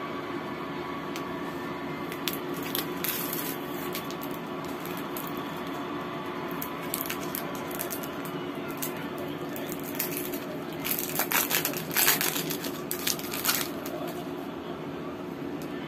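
Crinkling and rustling of a magnetic paper-doll sheet being handled, with scattered clicks and the loudest crinkles about eleven to thirteen seconds in, over a steady background hum.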